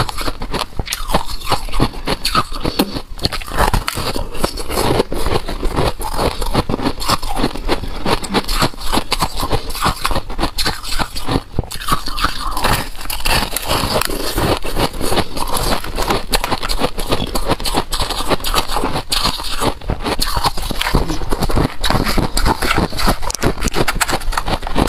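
Freezer frost being bitten and chewed, picked up close: a dense, continuous run of crisp crunches and crackles.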